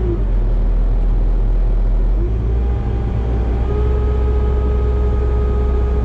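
Skid steer engine running steadily, heard from inside the cab while the boom is worked from the joystick. A steady whine starts about halfway through and holds.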